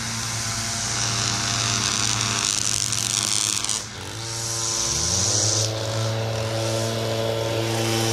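Two-stroke leaf blower engines running at a steady high drone with a strong rush of air from the nozzle. The engine noise dips just before halfway, then a blower revs back up with a rising pitch about a second later.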